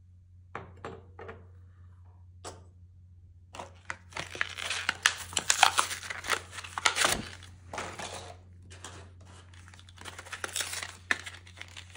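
A few light clicks, then from about three and a half seconds in, packaging crinkling and tearing in dense, irregular bursts for several seconds as a figure is unwrapped.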